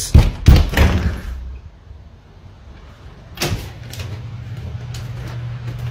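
Loud, aggressive knocking on a wooden interior door, several quick heavy knocks through the first second, then a single thump about three and a half seconds in, followed by a steady low hum.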